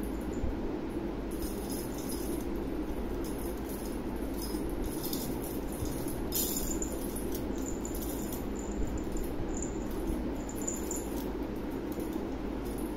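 A small bell jingles briefly several times, as a cat's collar bell or a bell on the feather wand toy moves during play. It sits over steady background noise.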